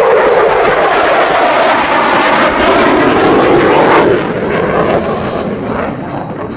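F-16 AM fighter jet passing in a display, its F100 turbofan making a loud rushing jet noise that drops off sharply about four seconds in and then fades away.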